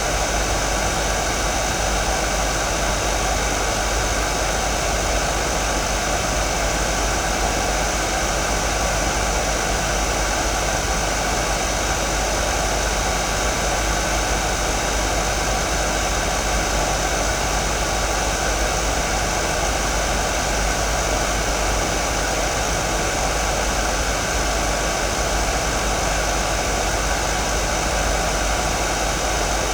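Hair dryer blowing steadily: an even, unchanging rush of fan and airflow noise.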